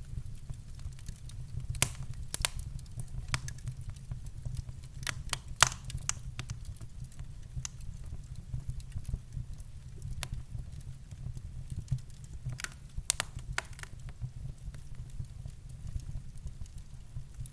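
Wood fire in a fireplace crackling, with irregular sharp pops and snaps, a few louder ones scattered through, over a steady low hum.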